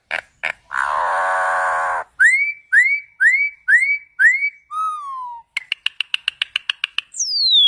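A bird giving a string of different calls: a few clicks, a buzzy note about a second long, five short rising whistles, a brief falling whistle, a quick run of clicks, and near the end a long falling whistle.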